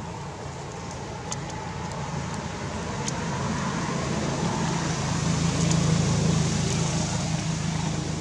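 A low, steady motor hum, like a vehicle engine, swells gradually to its loudest about six seconds in, then eases slightly; a few faint clicks sound over it.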